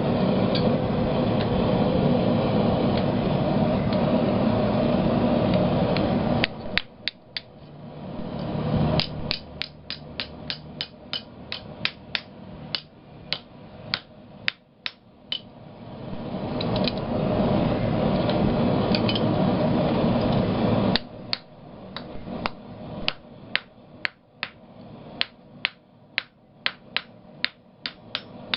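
A steady roar of the forge, broken twice by runs of hand-hammer blows on a hot half-inch round steel bar on the anvil, about three sharp ringing strikes a second. The first run of blows starts about a quarter of the way in and stops just past halfway, when the roar returns; the second starts about three quarters in and goes on to the end.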